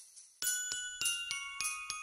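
Christmas-style background music: jingle bells shaken in a steady beat about three times a second, joined about half a second in by a bell-like melody of clear single notes.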